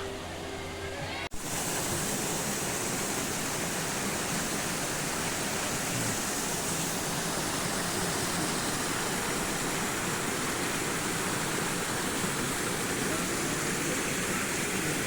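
Steady rush of flowing river water, after a snatch of background music that cuts off abruptly about a second in.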